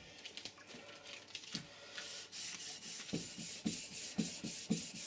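Wet 400-grit wet-and-dry paper on a sanding block rubbed back and forth over an air compressor's metal cylinder head, smoothing the gasket mating face clean of old head-gasket residue. A few light handling knocks come first; about two seconds in, the rhythmic sanding strokes start, about four a second.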